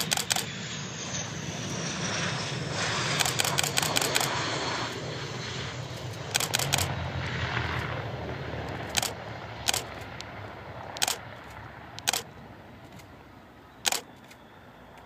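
MiG-21bis's Tumansky R-25-300 turbojet going past on landing: a whine that falls in pitch over a broad jet rush, which swells over the first few seconds and then fades away. Rapid bursts of DSLR shutter clicks, the loudest sounds, come at the start and around three and six seconds in, then single clicks every second or so.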